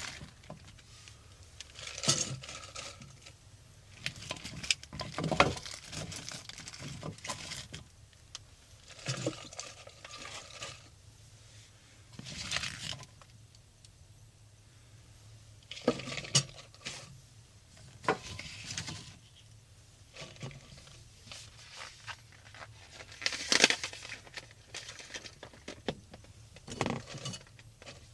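Irregular clinks, knocks and rustles of small objects being handled, like kitchenware and packaging being moved about, coming every second or two.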